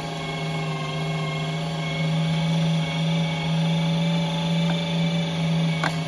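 LEM Mighty Bite electric meat grinder running with a steady motor hum on its stuff setting, pushing ground meat through the stuffing tube into a sausage casing. A short click near the end.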